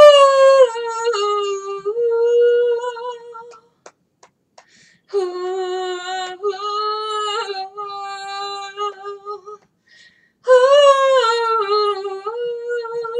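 A woman singing solo without accompaniment: three long phrases of held, slightly wavering notes with short pauses between. The first and last phrases fall in pitch.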